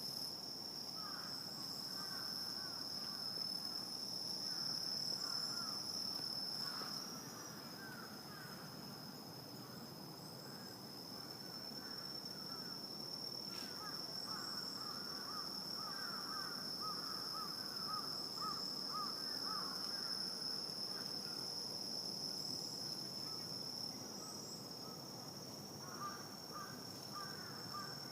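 Night insects: a steady high-pitched trill runs throughout, joined at times by runs of rapid lower chirps from another animal that come and go.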